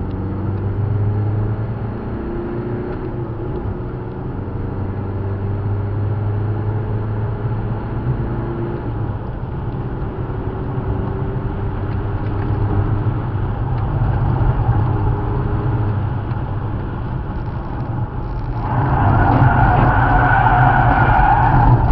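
Car engine heard from inside the cabin at track speed, its revs rising and falling through the corners. About three seconds before the end, a loud tyre squeal starts as the car slides sideways and loses grip, just before it runs off the track.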